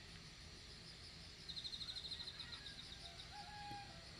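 Faint outdoor ambience with crickets chirping, a quick rapid high trill standing out about a second and a half in.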